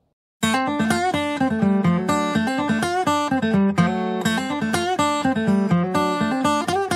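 Background music with acoustic guitar plucking a run of quick notes, starting suddenly about half a second in.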